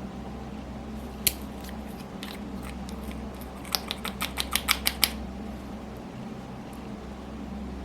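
A series of sharp clicks: one about a second in, then a quick run of about ten, over a steady low hum.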